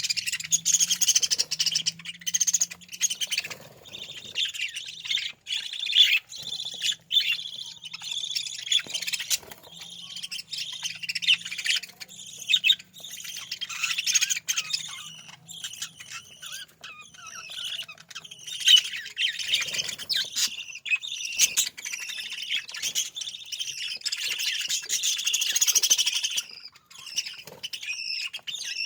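A flock of budgerigars chirping and chattering continuously, dense overlapping warbles and sharp squawks.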